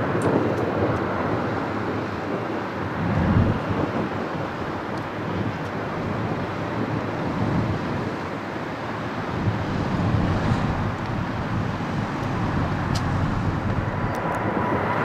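Distant roar of a Boeing 737's jet engines as the airliner climbs away after takeoff, with wind buffeting the microphone. Near the end, a louder roar with a steady whine comes in from another jet at takeoff power.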